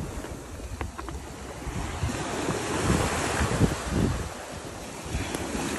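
Surf breaking and washing up the sand, swelling to its loudest around the middle, with wind buffeting the microphone.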